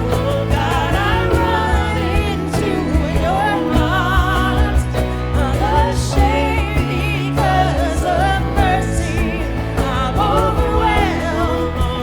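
Christian worship music: a solo voice sings with vibrato over sustained accompaniment chords and a steady bass.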